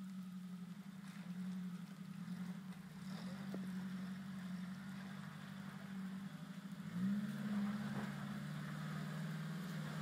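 Small off-road 4x4's engine running at low revs under load as it crawls up a wet rock ledge. It revs up briefly about seven seconds in, then settles back to a steady drone.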